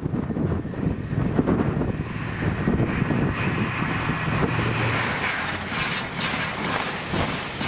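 Passenger train approaching at full speed on a main line: a rushing sound that builds from about three seconds in, with wheels starting to clatter over the rails near the end. Wind buffets the microphone.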